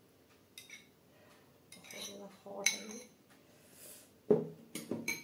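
Metal spoon clinking and scraping against a glass bowl while thick dal is spooned out of it, in scattered sharp clinks with a heavier knock about four seconds in.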